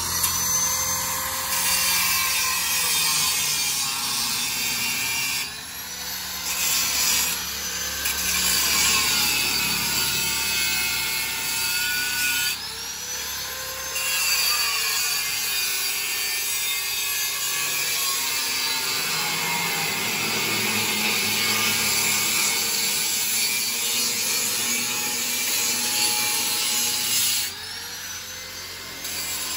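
Handheld angle grinder grinding steel pipe, a steady harsh grinding whose pitch sags and recovers as the disc bites and eases off. It lets up briefly three times.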